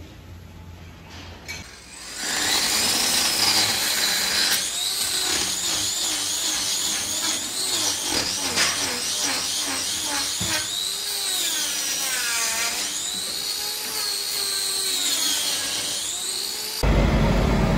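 A hand-held power tool, an angle grinder with a hoof-trimming disc, grinding horn from a cow's hoof. Its high whine dips and recovers in pitch again and again as the disc bites. Near the end it gives way abruptly to the low rumble of a heavy engine.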